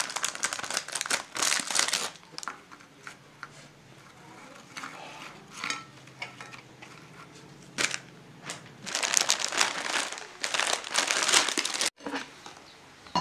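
Foil-lined plastic biscuit packet crinkling as the biscuits are pulled out by hand, in bursts: strongly for the first two seconds, briefly around five and eight seconds, and again from about nine to eleven and a half seconds. It cuts off suddenly near the end.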